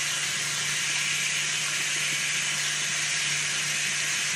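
Salmon frying in butter on a griddle: a steady sizzle, with a low steady hum underneath.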